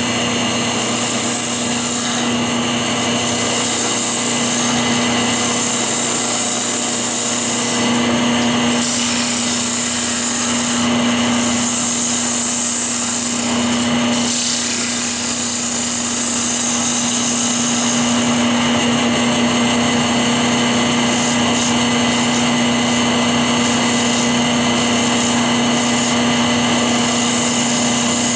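Wood lathe running with a steady motor hum while a turning tool hollows the inside of a spinning hickory cup, the cut hissing and scraping in stretches that come and go as the tool bites into the wood.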